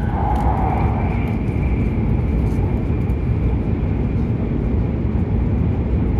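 Hokuriku Shinkansen train running at speed, heard from inside the passenger cabin: a steady, loud rumble of wheels, track and air. A faint high steady tone joins in about a second in.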